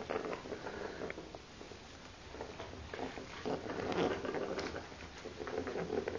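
Pet rats moving about in a shallow bubble bath: light, irregular splashing and pattering of water.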